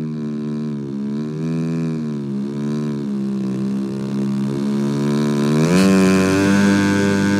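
Radio-controlled model airplane's engine running steadily as the plane comes in low, its pitch wavering slightly; near the end the note steps up sharply and runs louder.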